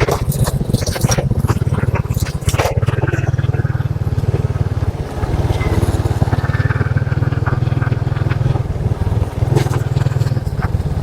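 Motorcycle engine running steadily while riding, a low pulsing drone, with scattered clicks and rattles over it.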